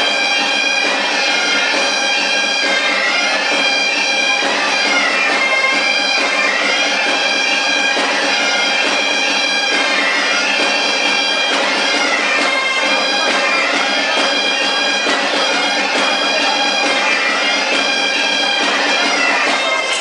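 Bagpipes playing a folk dance tune, the melody running over a steady drone without a break.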